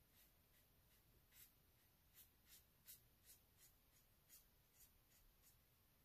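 Faint, short swishes of a paintbrush's bristles drawn across synthetic paper as alcohol ink is stroked on, about a dozen of them at uneven spacing, roughly two a second.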